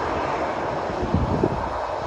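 Boeing 737 jet engines running steadily as the airliner rolls along the runway, heard from beside the airfield. Wind buffets the microphone in low gusts a little past a second in.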